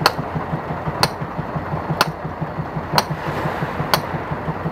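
Boat engine running steadily with an even low throb, and a sharp tick about once a second.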